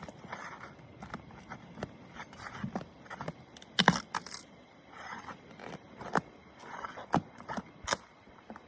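Pry bar working under roof shingles to pry their nails loose: irregular scrapes and sharp clicks, the loudest about four seconds in.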